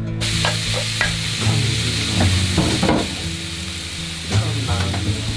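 Food sizzling in a frying pan, a steady hiss that starts abruptly, over background music.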